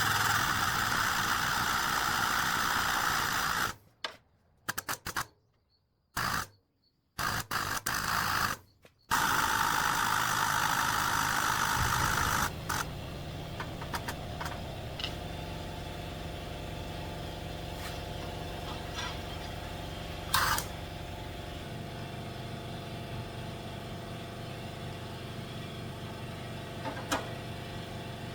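A 60-ton hydraulic shop press's power unit running under load as it bends a steel plate. It runs steadily, then stops and starts in several short bursts, then runs again. After about twelve seconds it settles to a quieter steady hum with a few light clicks.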